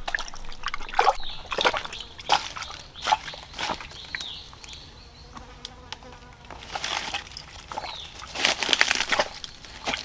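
Footsteps of rubber boots: splashing through a shallow stream, then stepping over rocks and dry leaf litter in irregular steps. A faint insect buzz sounds in the quieter stretch near the middle.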